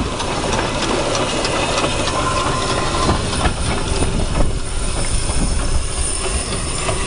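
A narrow-gauge steam train rolling past close by: a steady rumble with scattered light clicks from the wheels on the rails.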